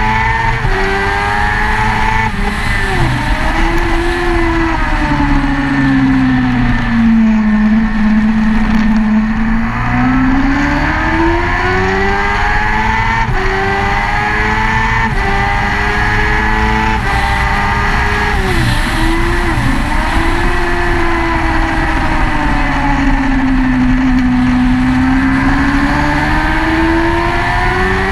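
Motorcycle engine at track speed, revs rising and falling through the corners with sudden pitch jumps at the gear changes, over steady wind rush on the microphone.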